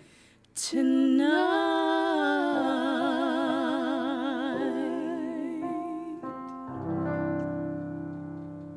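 Two women's voices in harmony hold a long final sung note with vibrato over piano, after a short pause and a quick breath. The voices drop out about halfway through while the piano plays on, and a last piano chord comes in near the end and rings away.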